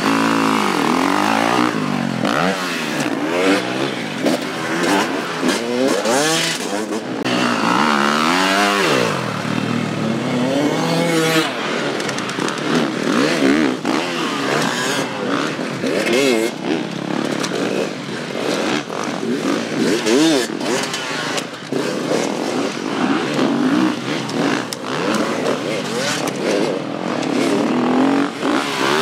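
Motocross bikes, one a Husqvarna, ridden hard round a dirt track. The engines rev up and drop back over and over as the riders accelerate, change gear and land jumps. The biggest rising and falling sweeps come near the start and again about eight seconds in.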